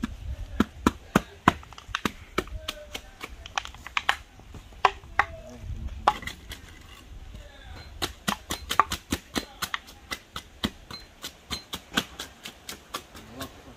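A wooden pole jabbed repeatedly into fresh concrete in a rebar-caged footing form, rodding the pour to settle it, knocking sharply against the steel bars and boards in quick, irregular taps with a short lull about seven seconds in.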